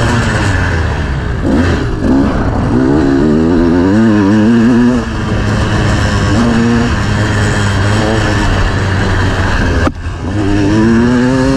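Off-road motorcycle engine revving hard, its pitch climbing and dropping repeatedly as the throttle is worked, with a brief sudden cut in the sound near the end.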